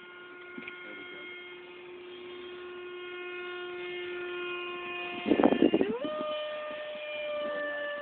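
Electric ducted fan of an RC Eurofighter jet whining at a steady pitch and slowly growing louder. About five and a half seconds in there is a brief rush of noise, and the whine then rises sharply in pitch as the throttle is opened and holds at the higher note.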